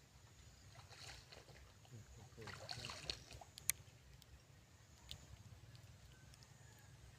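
Faint water splashing and knocking from a small boat, with a short burst of splashing about two and a half seconds in and a sharp click just after, over a low steady rumble.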